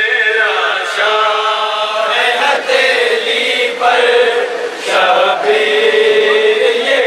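A man's voice chanting a noha, a mourning lament for the Prophet's family, in long, drawn-out melodic phrases with notes held and sliding between them.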